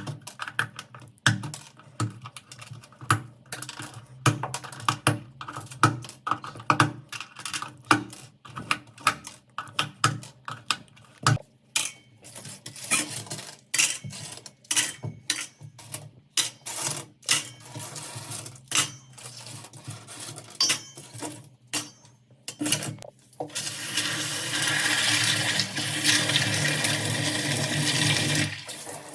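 Hard plastic keyboard keycaps clicking and clattering against each other and a hard surface as they are handled in quick succession. Near the end a tap runs steadily for about five seconds.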